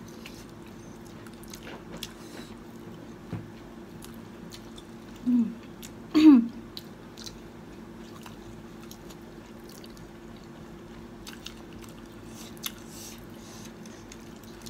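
Chewing and biting on fried chicken close to the microphone, with faint scattered wet mouth clicks over a steady low hum. Two brief vocal sounds come about five and six seconds in.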